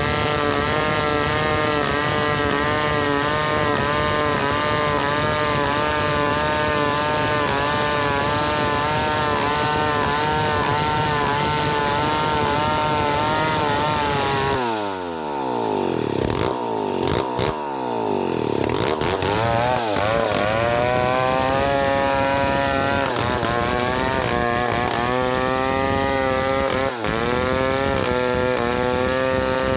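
Two-stroke chainsaw ripping lengthwise along a log under steady load. About halfway through, the throttle eases and the engine pitch sweeps down and back up for several seconds. It then runs steadily at full revs in the cut again.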